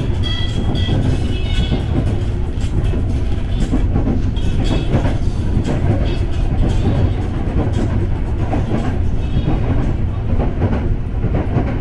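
KRL Commuter Line electric train running on the rails: a steady low rumble with irregular clicking of the wheels over the track.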